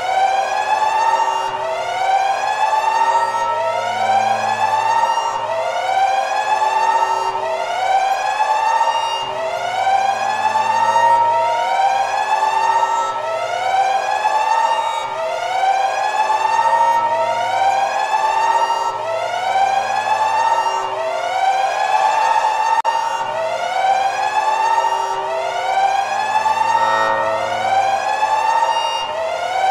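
Electronic siren-style alarm sound effect: a rising wail repeated over and over, about once every two seconds, with a low hum underneath that comes and goes. It serves as the overcharging warning alarm.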